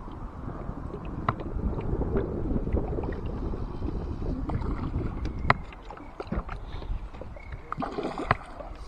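Water lapping and splashing around a small fishing boat on choppy water, with a few sharp knocks, the loudest about five and a half seconds in.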